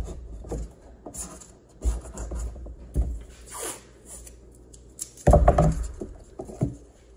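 Green masking tape being handled, torn and pressed down inside a canoe hull: irregular crinkling and rustling with short knocks, loudest about five seconds in.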